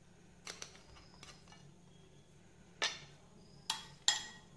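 A handful of short taps and clinks of a spoon against a stainless-steel puttu maker tube and plate as rice flour is spooned in, three louder ones in the second half, over a faint steady hum.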